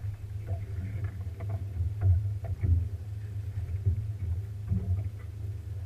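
Steady low hum of a boat's engine, with scattered short knocks.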